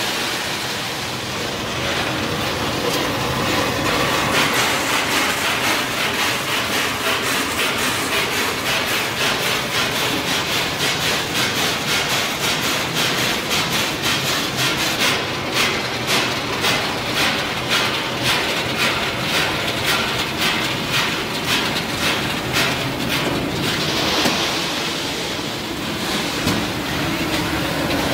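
Peanut roasting line running: a steady rush of raw peanuts pouring into the feed hopper and being conveyed, with a regular clatter about twice a second from a few seconds in until near the end.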